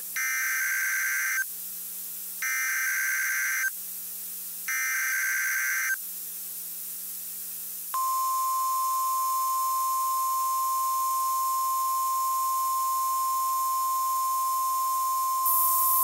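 NOAA Weather Radio required weekly test, received over a weather radio. Three identical bursts of SAME digital header data come first. After a short pause, the steady 1050 Hz warning alarm tone starts about eight seconds in and holds.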